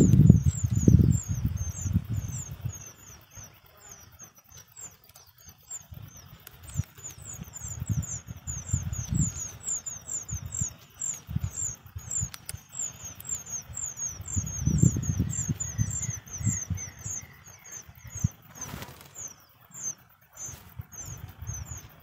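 Songbird nestlings begging from a nest hole in a cliff: thin, high, falling chirps repeated about three times a second without a break. Bursts of low rumble come and go underneath, loudest near the start and again past the middle.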